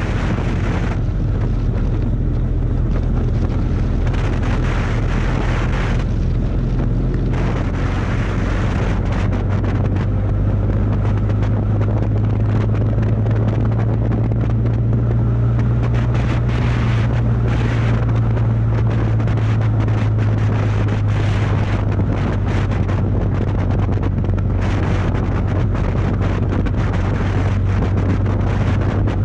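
Kawasaki VN750 Vulcan's V-twin engine running steadily at cruising speed, its note rising slightly about ten seconds in, with wind buffeting the microphone.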